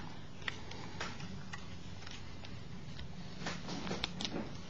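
Faint, scattered small clicks and taps from the plastic body and parts of a disassembled Canon T90 camera being handled, a few irregular ticks over a steady low background hum.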